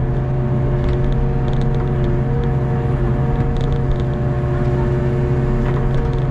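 Hitachi ZX48U mini excavator's engine running steadily with a constant whine over its hum as the boom and bucket move.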